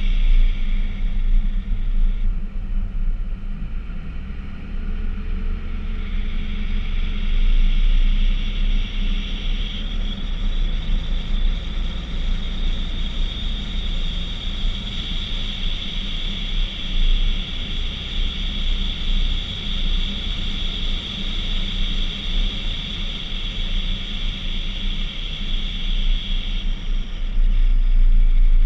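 2015 Toyota Tacoma pickup rumbling along, with steady low road and engine noise. A steady high-pitched whine sits over it, drops out about two seconds in, returns around six seconds, and stops a couple of seconds before the end.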